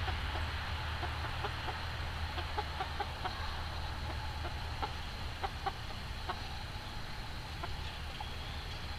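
A chicken clucking in short, scattered notes as it settles to roost for the night, over a steady low hum.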